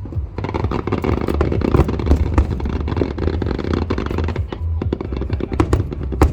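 Fireworks bursting and crackling in dense, rapid succession over a low rumble, with a few sharper cracks near the end, while music plays.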